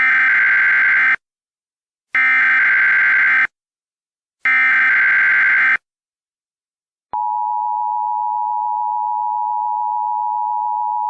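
Emergency Alert System (EAS) alert signal: three SAME header data bursts of harsh, buzzy digital tones, each about a second long with a second's gap between. About seven seconds in comes the steady two-tone EAS attention signal, which signals that an emergency message follows.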